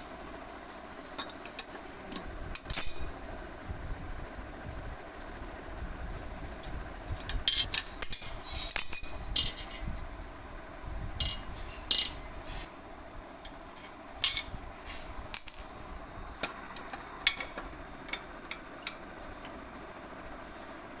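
Metal hand tools clinking and knocking against a basin mixer tap's fittings in scattered, irregular strikes, a few of them with a short metallic ring.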